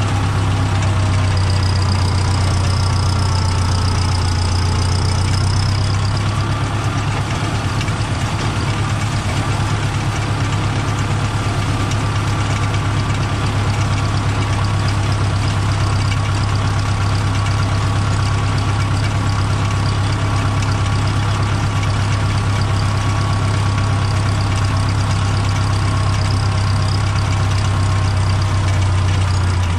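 Old Fendt tool-carrier tractor's diesel engine running steadily, heard close up from the driver's seat, with an even, deep drone that holds the same pitch throughout.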